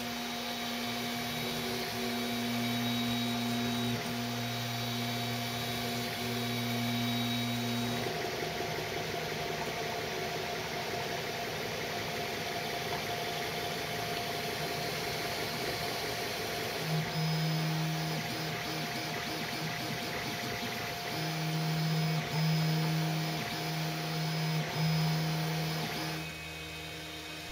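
Prusa i3 3D printer printing: its stepper motors whine in steady low pitches that change as the print head changes moves, about 8 and 17 seconds in, over the steady hiss of the print-head cooling fans.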